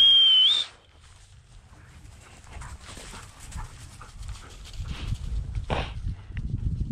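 One short blast on a dog-handling whistle, steady in pitch with a slight rise at the end. A bird dog's panting and rustling follow at a lower level.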